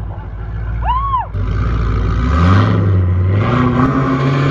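Engine revving with spinning tyres during a car's burnout, with a brief high squeal that rises and falls about a second in. After a cut, a Chevy Silverado pickup's engine revs, its pitch slowly climbing.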